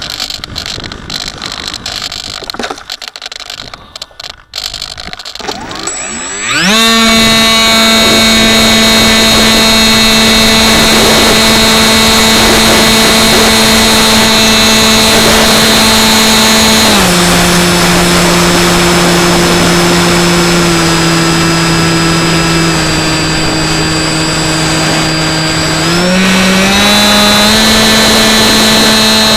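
Electric motor and propeller of an RC FPV plane, heard through its onboard camera. After a few seconds of handling noise, the motor spins up about six seconds in to a steady high-pitched whine over wind rush. The pitch drops as the throttle is eased back about ten seconds later, then rises again near the end.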